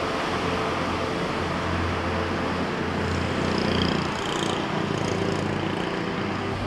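A motor vehicle running with a steady low hum over general road-traffic noise.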